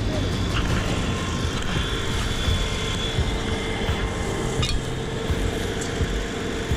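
Fire engines running nearby: a steady mechanical drone with a faint steady whine over it. A single sharp click about two-thirds of the way through.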